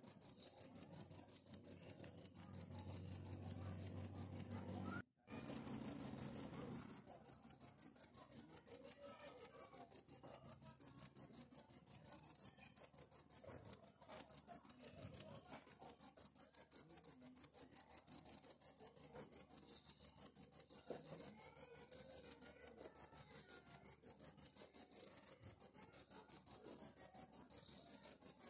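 A cricket chirping in rapid, even pulses on one high pitch, with no let-up. The chirping cuts out for a moment about five seconds in.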